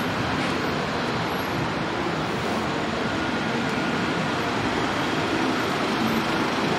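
Steady road-traffic noise on a busy city street: cars and taxis passing, an even rumble and hiss with no single vehicle standing out.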